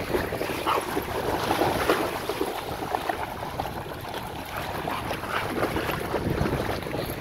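Dogs splashing as they run through shallow seawater, a string of irregular quick splashes, with wind buffeting the microphone.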